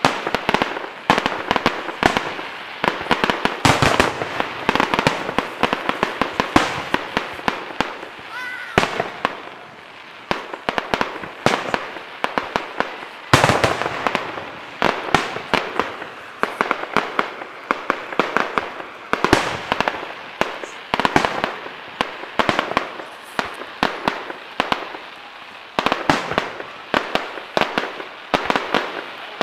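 Fireworks and firecrackers going off in rapid succession: a continuous crackle of sharp pops, with a louder bang every few seconds.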